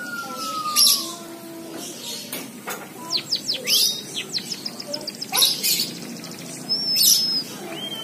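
White-headed munia singing a canary-style song it has been tutored with: quick chirps and sweeps, then a fast trill, broken by short hissy bursts, with a held high whistle near the end.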